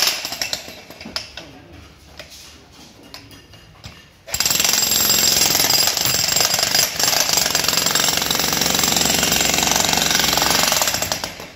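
Makita HM1306 electric demolition hammer running a chisel bit into concrete, a rapid, continuous run of blows. It runs briefly at the start, drops to a quieter, patchy stretch, then hammers steadily from about four seconds in until it tails off near the end.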